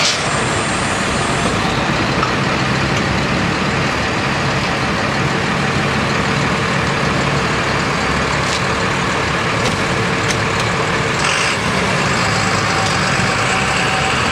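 A truck engine idling steadily, with a constant running noise and no change in speed.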